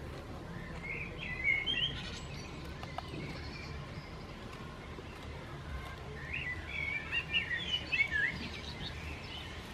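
A songbird singing two quick warbling phrases, one about a second in and a longer one from about six to eight and a half seconds, over a steady low background rumble.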